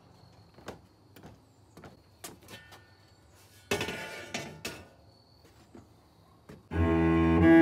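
Footsteps and knocks on a wooden deck, with a metallic clatter as a small portable grill's lid is handled about four seconds in. Near the end, cello music starts, much louder than what came before.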